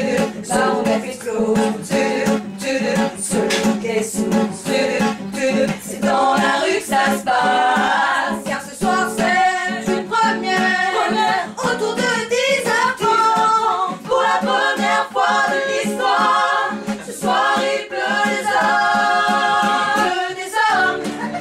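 A group of voices singing a song together in harmony.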